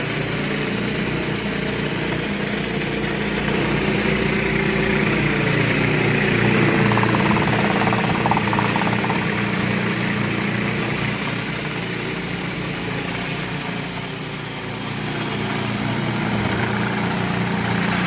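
Pressure washer engine running steadily, with the hiss of water spraying from a 19-inch rotary concrete surface cleaner as it cleans the driveway.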